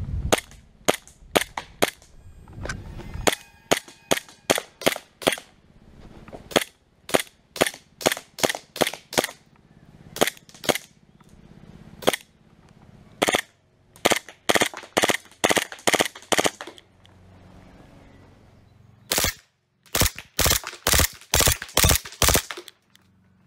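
WE Glock 18C green-gas blowback airsoft pistol firing single shots in quick succession, each a sharp crack as the gas cycles the slide. There are a few shots a second, in dozens of separate shots, and they come closer together near the end.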